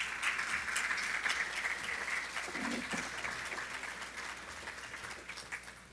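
Audience applauding a speaker's welcome, the clapping slowly dying away toward the end.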